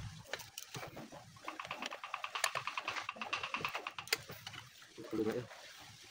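Light metallic clicks and scrapes of a cylinder barrel being worked by hand down over the piston and its rings on a small air-cooled engine, with a run of quick faint ticks in the middle.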